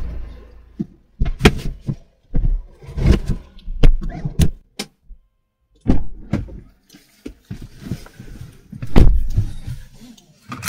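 A wooden oak wall cabinet knocking and scraping as it is pushed into an SUV's cargo area, followed by car doors being slammed shut. The result is a string of sharp knocks with heavier thuds, the loudest about nine seconds in.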